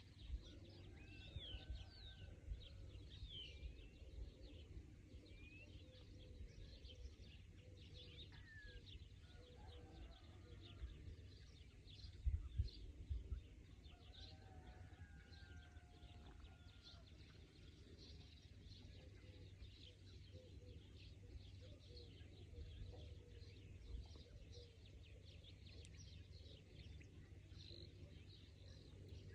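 Faint outdoor ambience: small birds chirping with short high sweeping notes over a steady low rumble, with a few dull low thumps about twelve seconds in.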